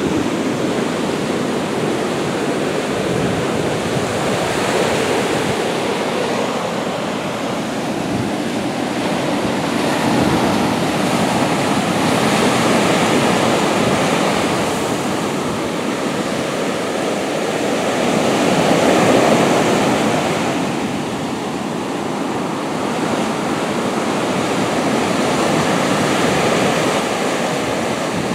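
Ocean surf breaking and washing up a sandy beach: a continuous rush that swells and eases as the waves come in, loudest about two-thirds of the way through.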